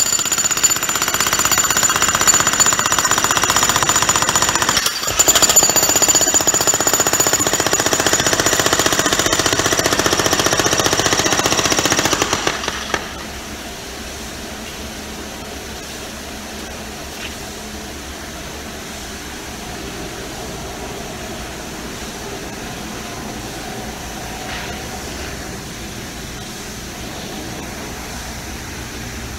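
Harbor Freight Hercules 66 lb electric breaker hammer running with steady, rapid hammering. There is a brief break about five seconds in, and it stops about twelve seconds in. Only a steady, even background noise remains after that.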